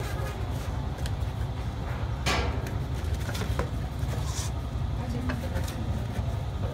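Cardboard box and insert handled while dinner plates are packed back into the box: rustling and scraping of cardboard with light clicks, loudest in a scrape about two seconds in, over a steady low rumble.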